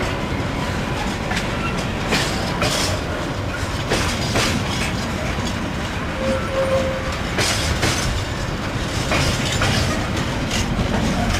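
Train moving away along the track: a steady rumble with pairs of wheel clicks over rail joints every one to two seconds.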